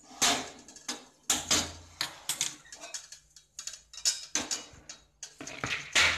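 Aluminium kadai with a perforated metal ladle in it clattering as it is handled and set on a gas stove burner: a string of irregular metal clanks and knocks, loudest just after the start and near the end.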